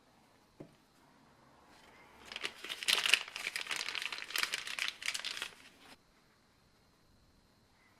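A single faint knock, then about four seconds of crinkling and rustling, loudest around three seconds in, stopping abruptly.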